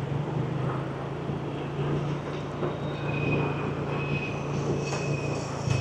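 City street traffic: a steady engine hum under road noise. From about halfway, a short high beep repeats at a steady pace, about every two-thirds of a second.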